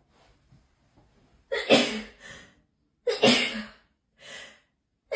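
A person sneezing twice in a hay fever sneezing fit, the sneezes about a second and a half apart, each followed by a short, quieter after-sound.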